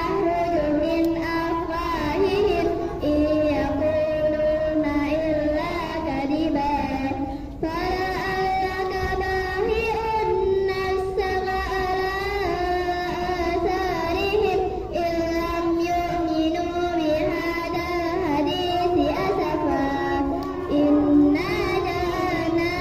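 Children chanting Arabic in unison in a sung, melodic style, as in Quran recitation or takbir. The melody wavers and flows on without stopping, except for two short breaks.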